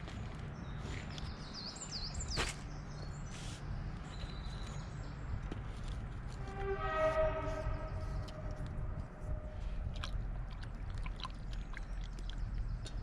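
A horn-like note lasting about a second and a half near the middle, over a steady low rumble, with a sharp click about two seconds in and short high chirps in the first few seconds.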